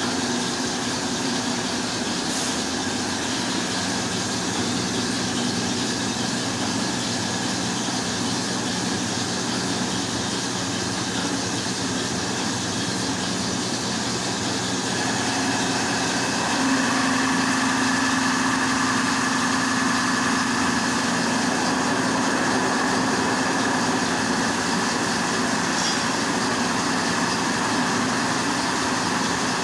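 24-inch stone flour mill (atta chakki) driven by a 10 hp electric motor, running with a steady mechanical drone and hum. It gets somewhat louder, with a higher tone coming in, about halfway through.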